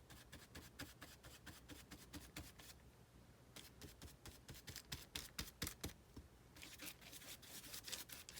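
Faint rustling and light, irregular scratchy ticks of fingers rubbing and pressing a glued paper towel flat onto a calendar page to push out air bubbles.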